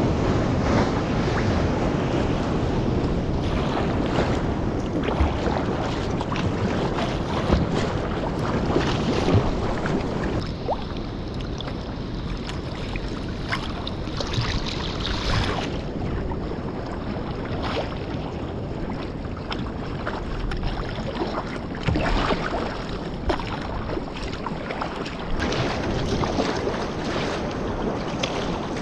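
Choppy sea slapping and splashing against a sea kayak's hull, in frequent short slaps, over steady wind buffeting the microphone.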